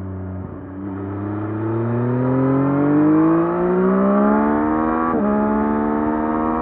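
2024 Yamaha MT-09 SP's 890 cc inline three-cylinder engine on its stock exhaust, pulling hard under acceleration with its pitch climbing steadily. About five seconds in, the pitch drops sharply at an upshift, and then it climbs again in the next gear.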